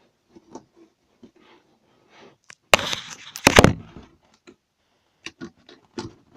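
Handling noise as things are moved about in a cupboard: scattered small clicks and knocks, with two loud, short scraping rustles about three seconds in.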